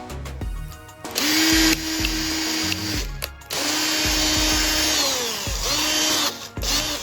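Small electric power tool motor, such as a drill, running at speed in two long bursts; the second winds down with a falling pitch about five seconds in, followed by two brief runs near the end. Background music plays underneath.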